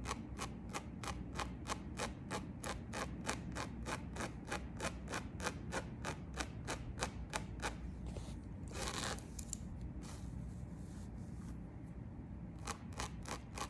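Tweezers plucking hairs from a lace frontal wig in quick, small strokes: a steady run of light clicks, about three to four a second. A brief rustle comes about nine seconds in.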